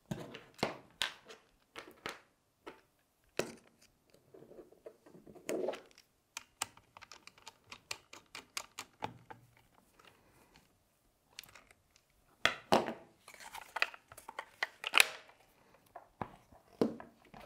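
Irregular small clicks, ticks and scrapes of hands and a screwdriver on an airsoft rifle's plastic and metal parts as the rear screw that holds the gearbox is driven in, with a busier run of clicks and rattles about two-thirds of the way through.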